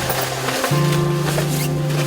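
Background music: a sustained bass note that steps up in pitch about a third of the way in, with percussive hits over it.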